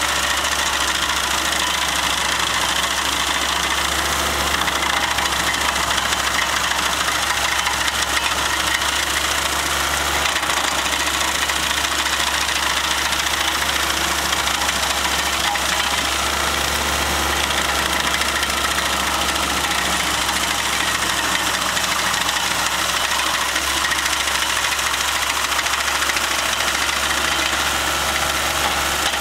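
Large remote-controlled stump grinder running steadily, its engine noise holding an even level throughout.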